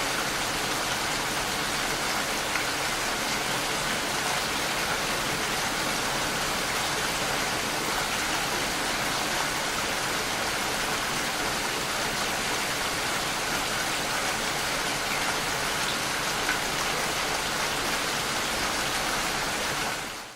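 Heavy, steady rainfall: a dense, even hiss of rain falling on a surface. It fades out quickly at the very end.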